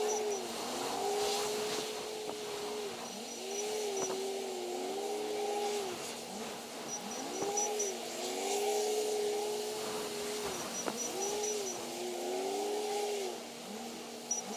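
Komatsu WA500 wheel loader's diesel engine revving up, holding and dropping back again and again as the machine works its loading cycle, over a steady drone. Short runs of high-pitched beeps come every few seconds.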